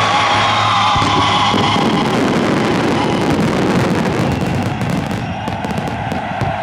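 Fireworks going off while the last held notes of the anthem music die away in the first couple of seconds. From about halfway through, dense crackling from the fireworks stars snaps over a steady rumble of bursts.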